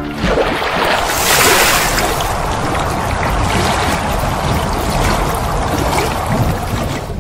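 Loud, steady rushing-water noise. It comes in sharply at the start, is strongest in the first couple of seconds, and cuts off suddenly at the end.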